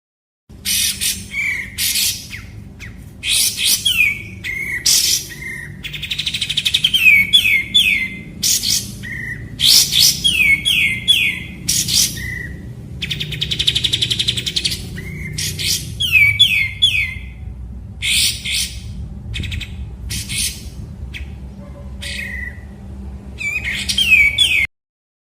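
A kapas tembak songbird singing a loud, varied song: sharp chattering notes, quick runs of three falling slurred whistles, and twice a longer buzzy rattle. The recording starts and cuts off abruptly.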